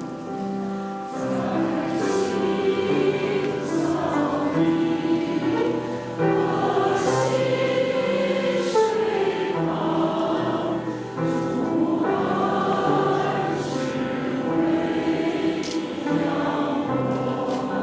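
A choir singing a hymn, held notes moving from chord to chord, with the sung words' consonants audible.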